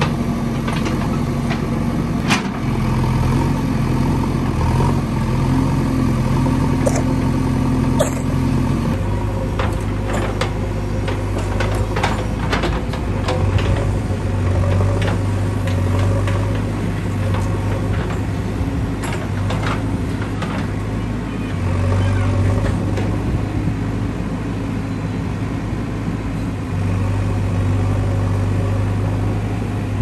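JCB 3DX backhoe loader's diesel engine running steadily while its backhoe bucket digs soil, with scattered clicks and knocks. The engine note changes and drops in pitch about nine seconds in.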